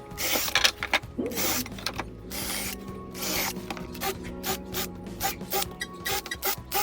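Power drill boring and countersinking screw holes in plywood in short bursts, over background music.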